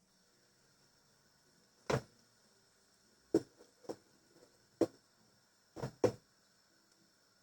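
Kitchen utensils knocking against cookware: about six sharp, irregularly spaced clicks and knocks, two of them close together near the end, over a faint steady background hum.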